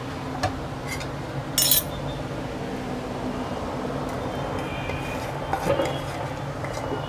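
Wooden spatula stirring and knocking against a nonstick frying pan full of potato filling, with a sharp clink about a second and a half in and a few soft knocks near the end, over a steady low hum.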